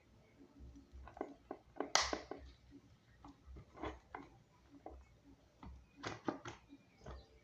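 Parts of an electric fan being handled and taken apart: scattered clicks and knocks, the sharpest about two seconds in and a quick cluster around six seconds.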